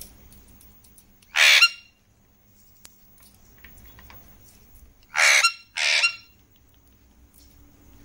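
Alexandrine parakeet giving three loud, harsh screeches: one about a second and a half in, then two close together about five seconds in.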